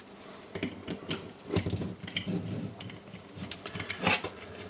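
Irregular small metal clicks, taps and scrapes of hand tools working on the grinder's armature bearing, growing busier near the end.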